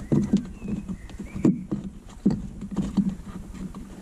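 Factory dash speaker of a Citroën C1 being wiggled and pulled by hand out of its plastic dashboard mounting: a series of irregular knocks and plastic clunks.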